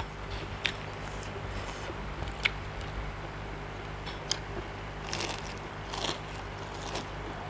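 Close eating sounds: a person biting and chewing seafood papaya salad, with scattered crisp clicks and crunches over a steady low hum.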